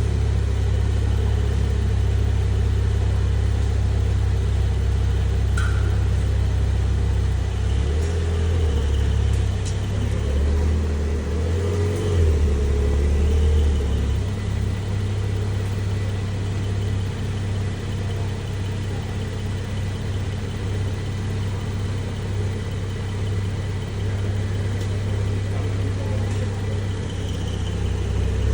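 Car engine running with a steady low rumble, shifting slightly in pitch partway through.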